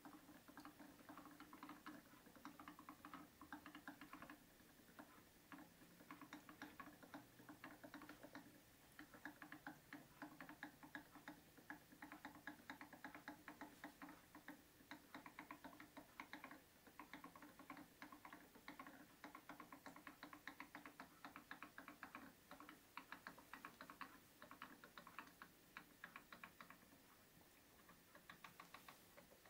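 Faint quick runs of small ticks and bubbling as ink drains from an upside-down Epson 114 ink bottle into the EcoTank printer's refill tank, air bubbling up into the bottle. A low steady hum runs underneath.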